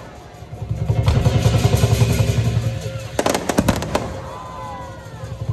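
Lion dance drum beating rapidly, with a short burst of firecrackers crackling about three seconds in.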